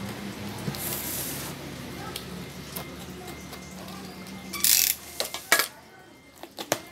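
A box cutter slitting the seal of a cardboard laptop box in one short loud rasp a little past two-thirds of the way in, followed by a few sharp clicks and knocks as the knife is handled and put down.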